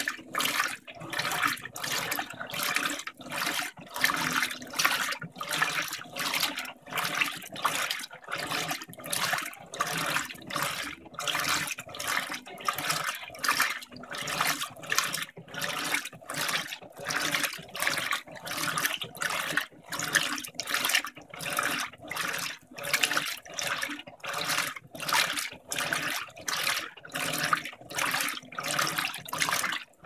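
Electrolux LTM15 top-load washing machine agitating a king-size duvet in water: a rhythmic swish and slosh with each back-and-forth stroke of the impeller, about three strokes every two seconds, over a steady low hum.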